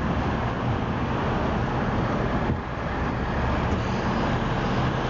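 Steady wash of freeway traffic noise from the cars and trucks passing below, dipping briefly about halfway through.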